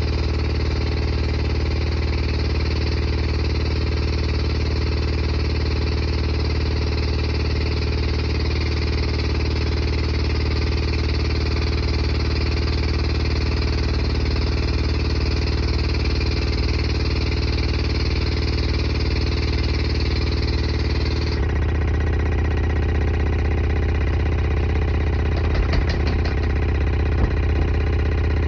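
Water flosser's pump motor running with a steady low hum and hiss. About three-quarters of the way through, the hiss drops away and the hum carries on, with a few faint clicks near the end.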